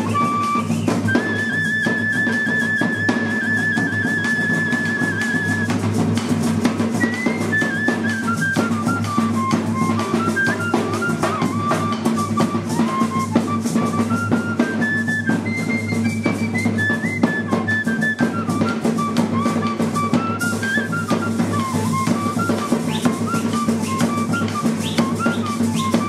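Music with steady drumming under a high, whistle-like melody line; a long wavering held note opens the tune, which then moves up and down in steps.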